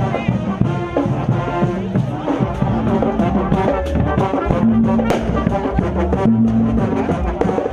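Music playing, with held low notes under a busy melody.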